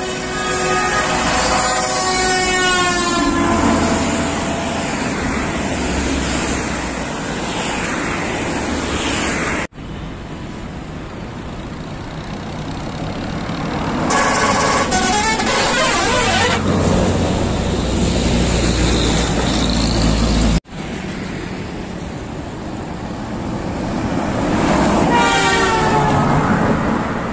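Pakistani buses' multi-tone horns sounding runs of changing notes over engine and traffic rumble. There are three separate clips, each cut off abruptly, with the loudest horn runs at the start, in the middle and near the end.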